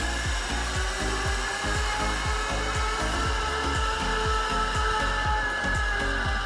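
Zip-line trolley pulleys running along the steel cable, giving a steady whirring whine, over background music with a beat.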